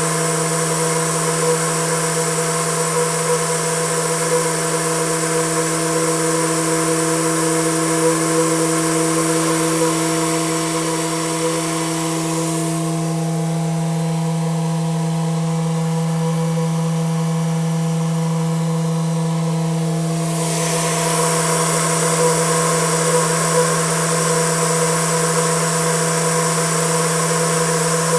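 Homemade Tesla turbine spinning near 9,700–9,800 rpm on 15 psi of compressed air: a steady low hum with a hiss of air over it. The hiss turns duller for several seconds in the middle, then comes back.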